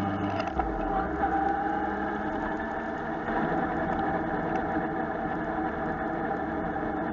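Motorcycle engine running at road speed with wind rush, heard through a cheap bike-mounted action camera. The low engine note drops about half a second in.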